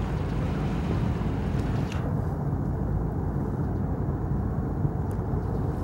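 Steady low rumble of a large loaded inland cargo ship's engine as the vessel passes on the river. A thinner hiss above the rumble drops away about two seconds in.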